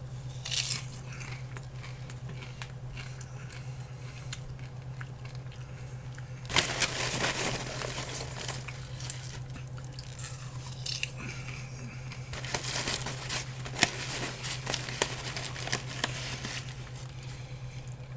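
Paper microwave-popcorn bag crinkling and rustling in irregular bursts from about six seconds in, as popcorn is taken out of it. A steady low hum runs underneath.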